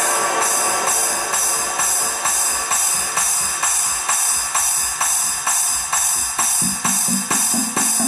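Electronic dance music from a DJ mix: a steady beat about two a second with bright hi-hat and shaker-like percussion on top. A lower pitched bass part comes in about six and a half seconds in.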